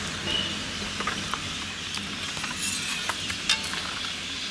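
A steady background hiss with a few light clicks and taps scattered through it.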